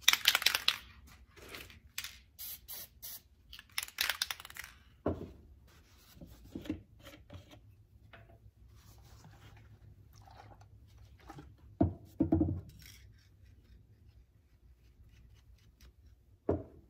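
Two short hisses from an aerosol spray-paint can near the start and about four seconds in, followed by paper shop towel rustling and rubbing and a few dull knocks of things handled on a wooden workbench.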